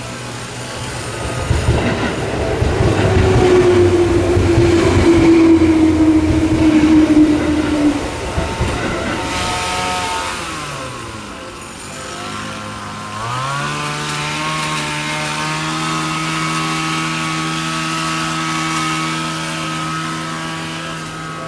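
Seibu Tamagawa Line electric train running over a level crossing, loudest for several seconds with a single tone sliding slowly downward over the rumble of the wheels. Then a whine of several pitches glides down, rises sharply about thirteen seconds in, and holds steady.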